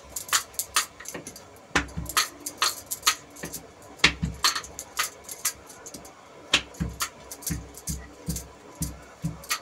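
Rolling pin rolling and knocking on a countertop as stuffed paratha dough is rolled out, with light clinks of bangles. Irregular knocks and clicks give way in the last few seconds to low thumps about twice a second.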